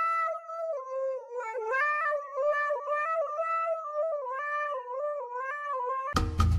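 A dog howling in long, wavering notes that step up and down in pitch. About six seconds in it is cut off by loud music with a heavy beat.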